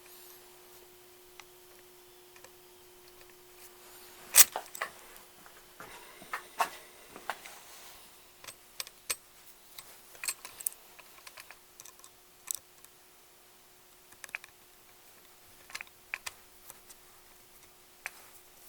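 Small metal parts and hand tools clicking and tapping at irregular intervals as small screws are fitted to fasten a ring onto a choke bracket's standoffs, with one sharp clack about four seconds in and a faint steady hum underneath.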